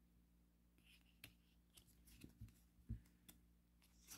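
Faint handling of a tarot card deck: a few soft taps and the slide of a card over paper as cards are moved through the stack, over a low steady room hum.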